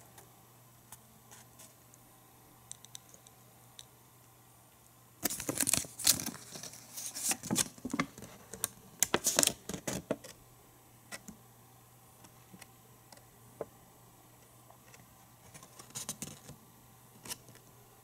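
Handling noise: scattered light ticks, then a few seconds of close clicking and rustling from about five seconds in, with a shorter burst near the end, as small objects and paper are moved about by hand.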